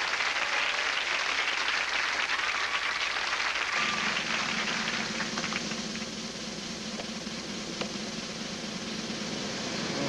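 Studio audience applauding, the clapping fading about four seconds in and leaving a quieter low steady hum.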